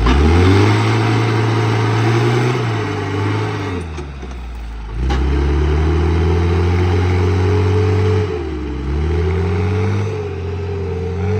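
Tractor engine revving hard in three long pulls, its pitch rising, holding for a few seconds and dropping back between each.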